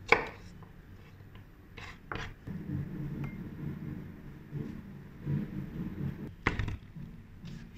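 Scattered sharp clicks of food prep: a chef's knife cutting through asparagus and tapping the wooden cutting board, then asparagus pieces dropped into a small glass bowl, with one louder knock about six and a half seconds in.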